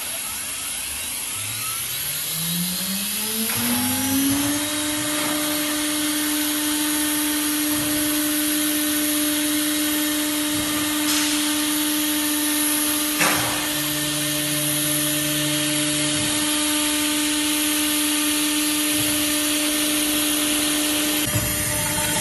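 CNC router spindle motor spinning up: its whine rises in pitch over about three seconds, then holds steady at full speed over a constant hiss. A single sharp click comes about 13 seconds in.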